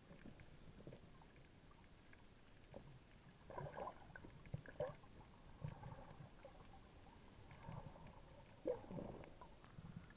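Faint, muffled underwater gurgling and sloshing picked up by a submerged action camera, with a few soft knocks and short bubbly sounds.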